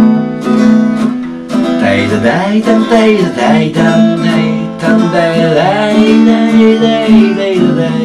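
Acoustic guitar strummed in a steady rhythm, with a wordless "dai-da-dai" sung melody over it between verses of a song.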